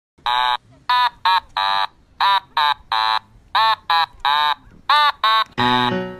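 Background music: a tune of short, buzzy staccato notes, about three a second, each with a slight bend in pitch. A lower accompaniment joins near the end.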